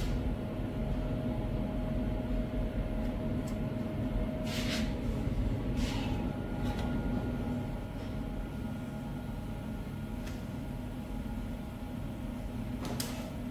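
Steady low machine hum, with three brief scratchy sounds about four and a half, six and thirteen seconds in.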